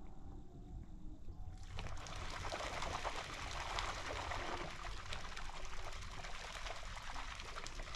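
Lake water lapping and trickling against a rocky shoreline: a dense, crackly hiss of small splashes that starts abruptly about a second and a half in. Before that there is only a low rumble.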